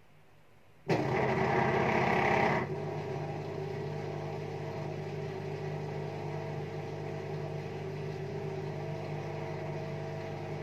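Front-loading washing machine running an empty spin: a steady mechanical hum starts abruptly about a second in, louder for the first couple of seconds, then settles to an even hum with a low steady drone until it cuts off at the end.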